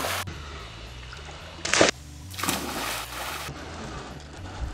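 Children jumping off a wooden dock into a pond: a sharp splash as one hits the water a little under two seconds in, followed by about a second of water splashing and washing.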